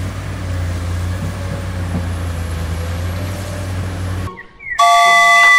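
Diesel engines of a large CAT crawler excavator and a dump truck running, a steady low rumble that cuts off about four seconds in. Near the end, a short, loud, steady tone with several pitches, lasting under a second.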